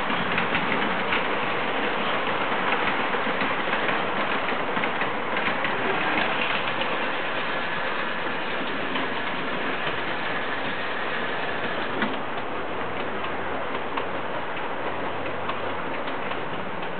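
Standard gauge model trains rolling on metal track: a steady clatter of rapid wheel clicks, loudest in the first half while a train passes close, then easing off, with one sharper click about twelve seconds in.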